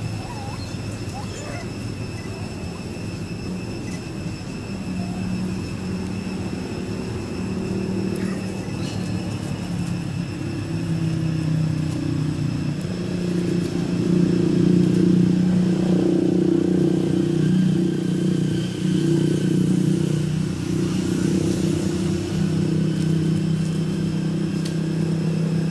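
A motor vehicle's engine running nearby with a steady low hum that grows louder about halfway through and stays up to the end.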